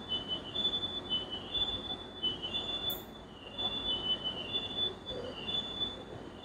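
Haas CNC milling machine running: a high-pitched steady whine with a second, wavering tone just below it, over a broad machine noise.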